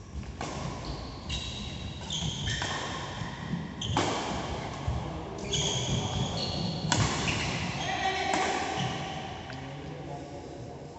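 Badminton rally: racket strings striking the shuttlecock about every second and a half, with shoes squeaking sharply on the synthetic court mat between shots, echoing in a large hall.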